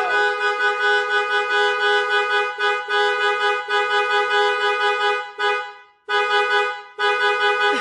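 Jeep Liberty's two-note horn blaring on its own in one long continuous blast with no one pressing it. It falters and cuts out briefly twice near the end, then comes back on.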